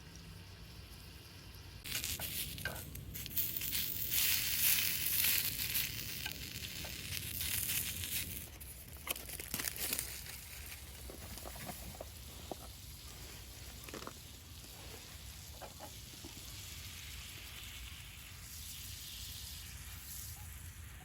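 Food frying in a hot pan: a loud sizzle starts about two seconds in, then dies down after several seconds to a quieter sizzle with scattered crackles and clicks.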